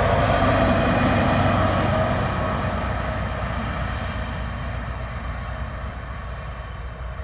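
Class 218 diesel-hydraulic locomotive running light past, its engine loudest in the first couple of seconds and then fading steadily as it draws away.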